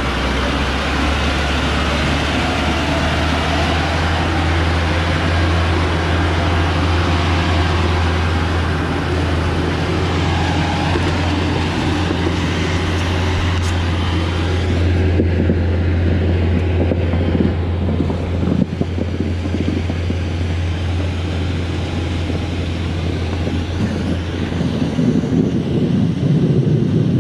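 Engine of a loaded log truck running hard under load as it crawls up a muddy slope, a steady deep drone. From about halfway through the sound grows duller as the truck pulls away.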